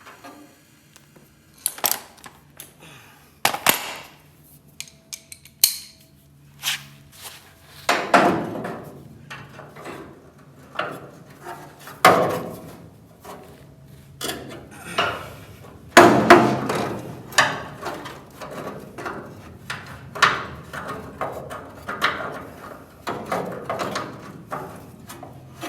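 Hand wrench working a truck door's hinge bolt a little at a time: irregular metallic clicks and clanks with scraping strokes, getting louder about a third of the way in.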